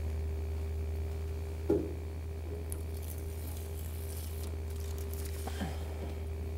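Protective backing strip being peeled off tape along the edge of a bare steel car door, with faint papery crackling from about three seconds in. A single knock at about two seconds is the loudest sound, all over a steady low hum.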